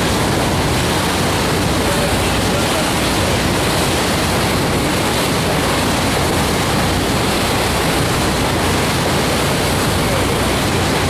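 Steady, loud rush of wind and water from a boat under way at sea, with wind buffeting the microphone.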